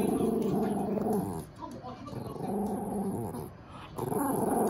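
A dog growling in three long, drawn-out bouts, each over a second long, with short pauses between them.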